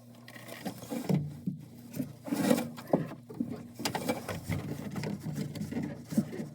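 LG washing machine running: a steady motor hum under irregular knocks, thumps and rattles from the drum and cabinet.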